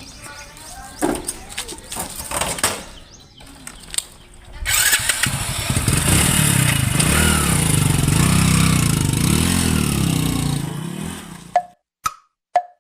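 Hero HF Deluxe motorcycle's small single-cylinder engine, after a few clicks and knocks, starts about five seconds in and runs, its pitch rising and falling, for about seven seconds. It then cuts off suddenly, followed by short pops about twice a second.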